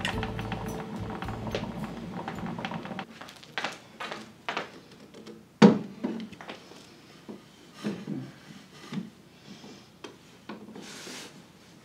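A wooden chair being handled: several light knocks of wood, the loudest a little past halfway. Near the end a faux-fur cover rubs and rustles as it is pulled over the seat and back. Before this, a steady hum stops about three seconds in.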